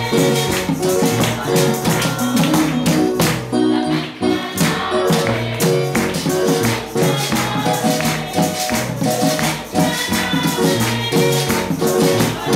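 Live worship song sung through a microphone and PA by a girl's voice, over a hand drum, steadily shaken metal hand percussion and sustained keyboard notes, in a lively Latin rhythm.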